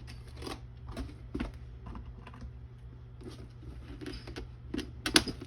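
Irregular light clicks and taps of plastic parts being handled and fitted together, with a couple of sharper knocks near the end, over a steady low hum.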